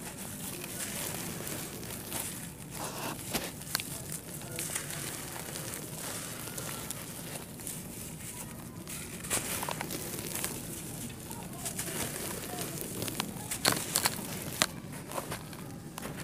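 Dry, dusty red-dirt bars crumbled and crushed by hand over loose red dirt: a steady gritty crackling made of many small sharp crunches as the dirt breaks and falls, with a few louder crunches around the middle and near the end.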